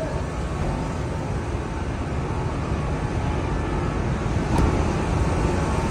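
Low, steady rumble of vehicle engines and road traffic, growing slightly louder toward the end, with a faint click about four and a half seconds in.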